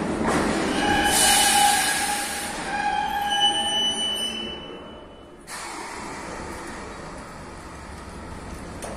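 Metro train braking to a stop at the platform, its brakes and wheels squealing in several steady high tones that fade away as it comes to rest. About halfway through, a sudden burst of noise sets in as the doors open.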